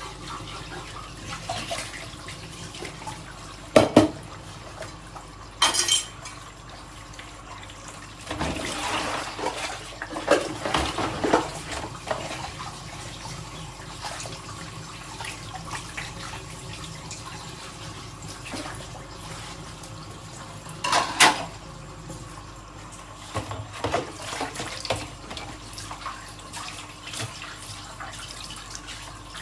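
Dishes being washed by hand at a kitchen sink: tap water running steadily while dishes clink and clatter now and then. There are sharp clinks about 4, 6 and 21 seconds in, and a run of clattering from about 8 to 12 seconds.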